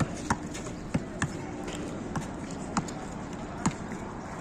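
Basketball bouncing on a hard outdoor court, a string of irregularly spaced sharp thuds as it is dribbled up the court.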